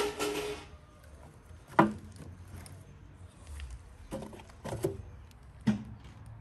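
Split firewood logs being loaded into a small sheet-metal wood stove, giving about five sharp wooden knocks against the metal firebox and each other. The loudest comes about two seconds in, and the first is followed by a brief scraping rustle.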